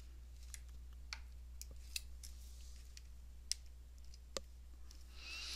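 Faint, scattered small clicks and ticks of metal tweezers and thin metal contact strips against the plastic of a solderless breadboard as a column conductor strip is pried out, with a short rustle near the end.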